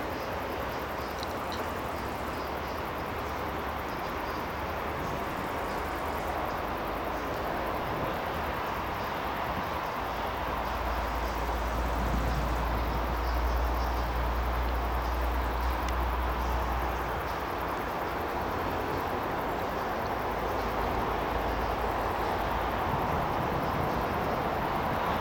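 TEP70BS diesel passenger locomotive approaching with its train, its 16-cylinder diesel engine giving a steady rumble mixed with rail noise that grows slowly louder as it nears.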